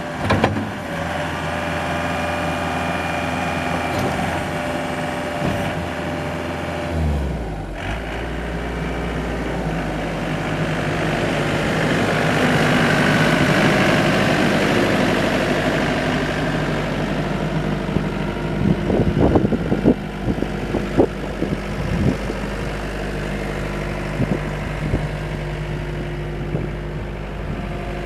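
Gehl 6640 skid steer's diesel engine running steadily. Its note changes about seven seconds in, it grows louder for a few seconds in the middle, and a few short knocks come near the two-thirds mark.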